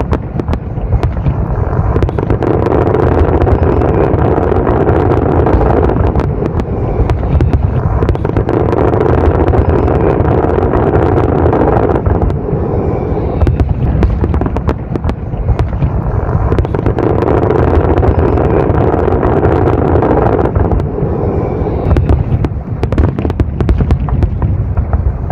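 Fireworks display: a dense, continuous run of bangs and crackling pops from bursting aerial shells. Underneath is a steady background noise that swells and fades every few seconds.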